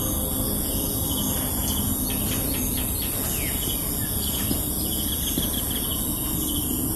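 Countryside morning ambience: insects trilling steadily in a continuous high drone, with a few short bird chirps in the middle, over a steady low background noise.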